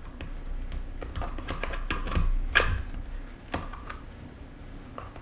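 Irregular plastic clicks and knocks as a black plastic cover on a small single-cylinder four-stroke engine is pressed and fiddled with, trying to make it snap closed without it latching.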